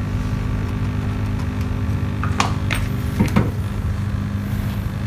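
Steady low hum of a running Quick 850A hot-air rework station's air pump, with a few light clicks and knocks from a circuit board being handled in its holder about two and a half and three seconds in.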